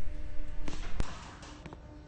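Lift machinery: a low rumble and faint hum with a few sharp clicks, dropping to a quieter hum about a second in.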